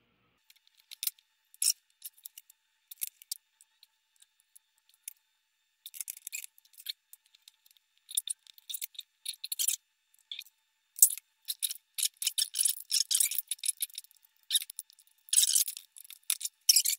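Irregular small clicks, scrapes and rustles of wires and a small circuit board being handled, sparse at first and busier from about six seconds in.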